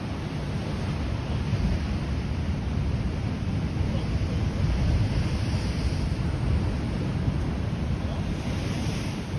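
Ocean surf washing over rocks, with wind rumbling on the microphone. The hiss of the wash swells twice, around the middle and near the end.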